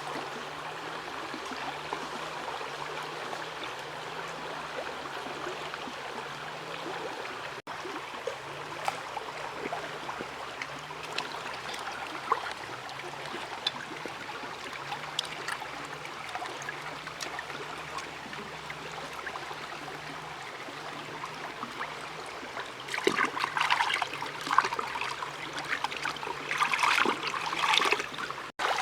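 River water flowing and trickling steadily. Louder irregular bursts of sound come over it in the last several seconds.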